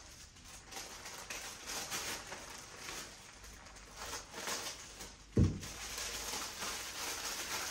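Faint rustling and handling of packaging as makeup brushes are unpacked, with one dull thump about five and a half seconds in.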